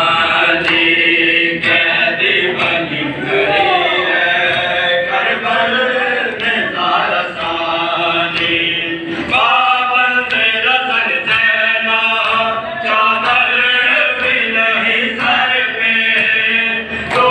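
Men chanting a noha, a Shia mourning lament, together, with regular slaps of matam (open hands beating on chests) keeping time.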